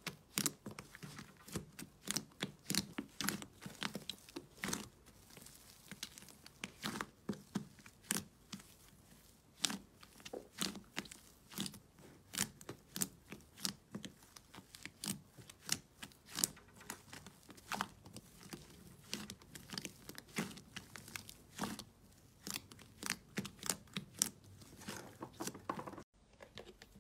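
Hands squeezing, poking and pulling apart thick blue fluffy slime in a plastic tub, giving irregular crackling, popping and tearing clicks, several a second.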